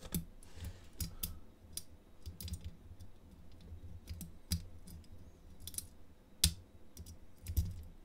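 Lock pick and tension wrench working the pins of a Master Lock 685EURD five-pin padlock cylinder: irregular small metallic clicks and ticks as the pins are lifted one at a time (single-pin picking), the sharpest about six and a half seconds in.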